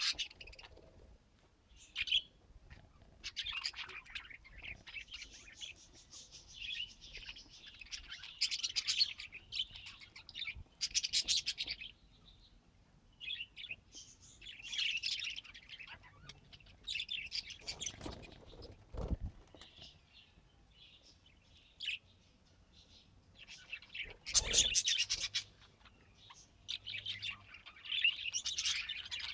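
Pet budgerigars chirping and warbling in irregular bursts of high chatter, with a couple of low thuds a little past halfway and again near 24 seconds in.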